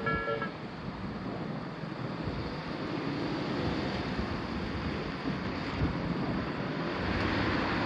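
A Japanese railroad crossing's electronic warning bell, pulsing in a two-tone pattern, cuts off about half a second in as the crossing clears. A steady rushing background noise follows, much like wind on the microphone.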